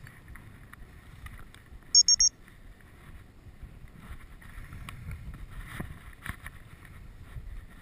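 Three short, high-pitched electronic beeps in quick succession about two seconds in, over wind buffeting the microphone. Later come a few soft splashes and rustles as a person wades into the lake shallows through the bankside vegetation.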